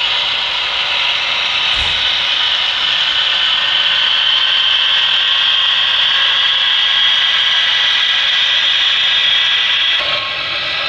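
HO-scale model coal train running on the layout: a steady rushing hiss of many small metal wheels rolling on the rails, with a few thin whining tones held over it. The sound shifts briefly about ten seconds in.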